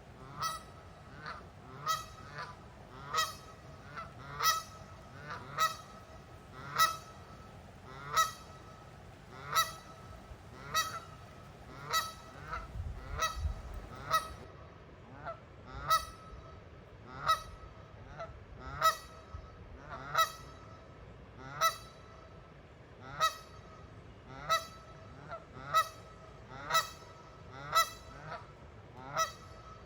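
Geese honking over and over, a call roughly every second, some in quick pairs. A brief low rumble comes about halfway through.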